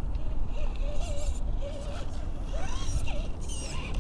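A radio-controlled rock crawler's electric motor and gears whining in spurts as it climbs rocks, the pitch wavering with the throttle. Under it runs a steady low rumble.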